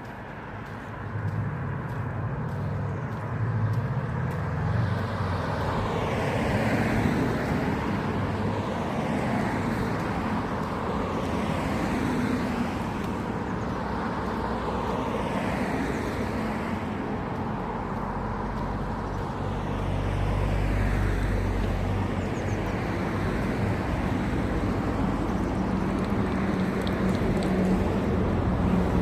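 Road traffic: vehicles passing one after another, their tyre and engine noise swelling and fading, with a deeper rumble about two-thirds of the way through.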